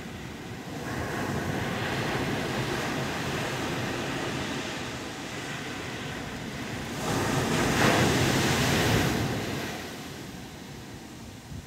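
Atlantic surf breaking on a sandy beach: a steady wash of waves that swells about a second in, with the loudest wave breaking about seven seconds in and fading over the next two seconds. Some wind buffets the microphone.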